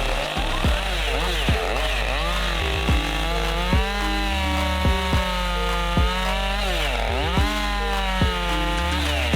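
Chainsaw on an Alaskan-style chainsaw mill running under load as it rips a log lengthwise into lumber, its pitch rising and falling as the cut goes. Background music with a steady beat plays underneath.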